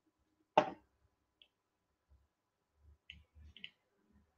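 A single sharp click about half a second in, then a few faint, quick clicks and soft low knocks near the end.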